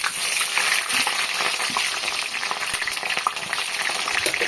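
Food sizzling and crackling steadily in hot oil in a pan, with scattered light clicks from stirring.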